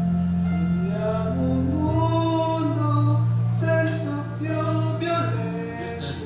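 A man singing over a music backing track with steady low notes underneath; the voice comes in about a second in.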